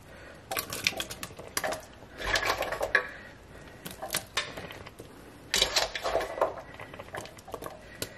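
Chopped potatoes and carrots dropped by hand into a slow cooker's ceramic crock, landing with clattering knocks in about four handfuls, a second or two apart.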